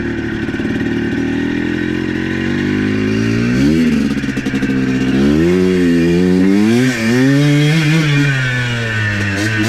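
ATV engine running under way, steady for the first few seconds, then rising and falling in pitch again and again as the throttle is opened and eased off.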